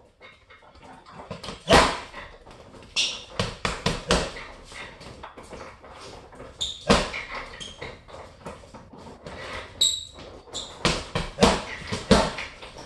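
Boxing gloves punching a hanging Everlast heavy bag: irregular combinations of sharp thuds, a dozen or so hits, the hardest about 2, 4, 7 and 12 seconds in. A few short high squeaks sound between the punches.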